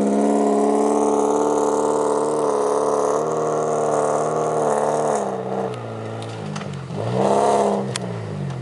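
UAZ off-road vehicle's engine running hard at high revs, its pitch wavering, then falling as the throttle eases about five seconds in. Near the end the revs drop and pick up again in a quick rise, with a few sharp knocks and clatters.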